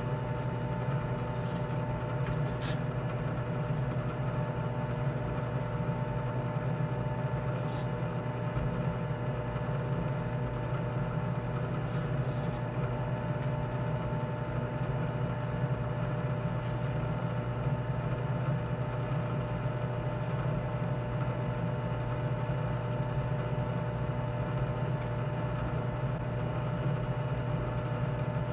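Benchtop drill press running steadily, a continuous motor hum with a few faint clicks as the countersink cutter and workpiece are handled.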